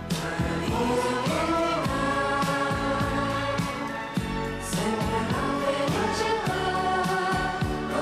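Italian pop music in a passage between sung lines: long held chords over a steady, repeating bass line.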